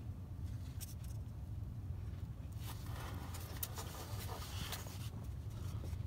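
Faint handling noises: light scraping and rustling with a few small ticks, about a second in and again around the middle, over a steady low hum.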